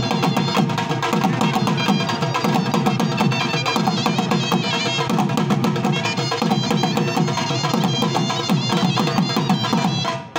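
Several dhol drums playing a fast, driving dance rhythm for the Khattak dance, with a high pitched melody line above them. The music dips for a moment near the very end.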